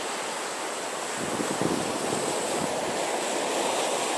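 Sea surf washing onto a beach: a steady rush of breaking waves that swells a little about a second and a half in.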